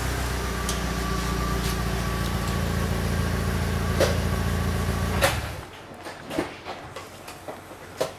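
A motor or engine running steadily with a low hum, which cuts off about five seconds in with a click; after that only faint scattered clicks and taps.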